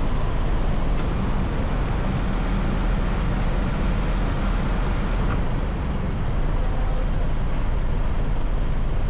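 Steady road noise of a car being driven: a continuous deep rumble of engine and tyres.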